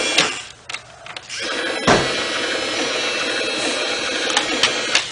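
Motorized toy excavator running, its small electric motor and plastic gears whirring as the boom and bucket move. It stops briefly near the start, then runs steadily again, with a sharp click about two seconds in.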